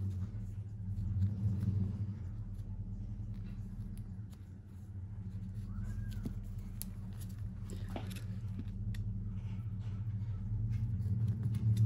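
Steady low hum, with a few faint clicks and rustles from small parts being handled.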